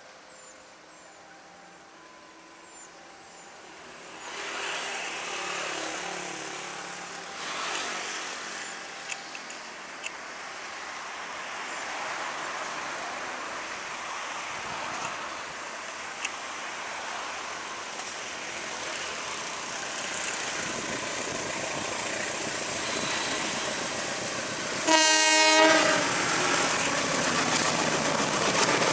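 CC 201 diesel-electric locomotive hauling a passenger train, its engine and rolling wheels growing louder from about four seconds in as it approaches. About 25 seconds in comes a short horn blast, the loudest sound, followed by the louder rumble of the train going by.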